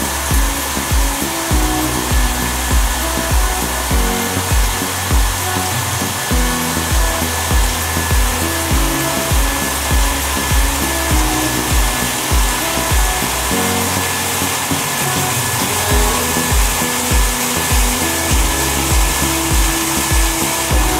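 Steady whirring hiss of an Affolter AF160 CNC gear-cutting machine at work, mixed with background music that has a steady beat of about two thumps a second.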